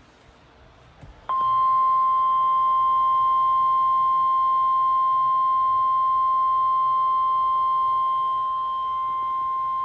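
Emergency alert attention tone: one steady, unbroken high tone that starts about a second in and holds for about nine seconds, announcing a National Weather Service flash flood warning.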